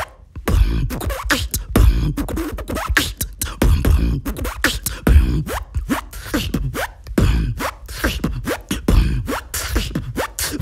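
Human beatboxing: a fast vocal-percussion beat of sharp mouth clicks and snare-like hits, with a deep bass hit recurring about every one and a half to two seconds, starting after a brief pause.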